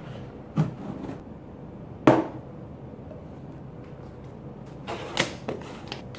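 Plastic supplement tubs and a shaker bottle being handled on a table: a few knocks and clunks, the loudest about two seconds in, then a quick cluster of them near the end as a tub is picked up.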